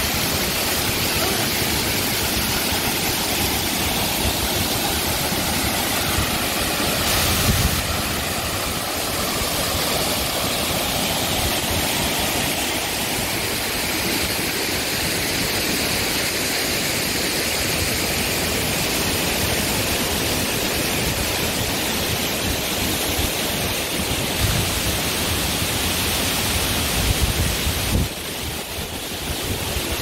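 Waterfall: a steady rush of falling water. It drops a little in level about two seconds before the end.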